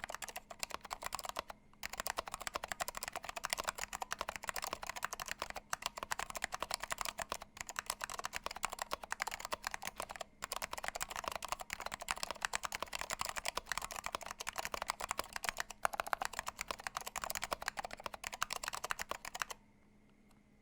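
Fast continuous typing on a mechanical keyboard with Orange Alps switches, PBT keycaps, a steel plate and a plastic case: a dense stream of key clicks with brief pauses about a second and a half in and around ten seconds in. The typing stops about a second before the end.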